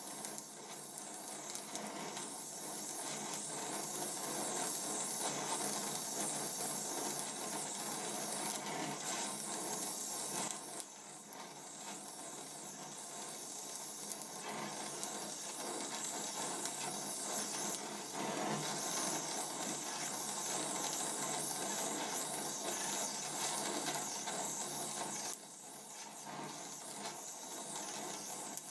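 Donmet 132A micro gas-welding torch flame hissing steadily while melting a weld pool on steel pipe with filler rod. The hiss drops in level about eleven seconds in and again near the end.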